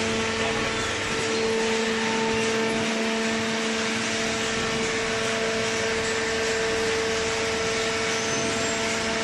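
Horizontal paper baler running: a steady machine hum with a constant low tone over an even rush of noise, typical of its hydraulic pump motor.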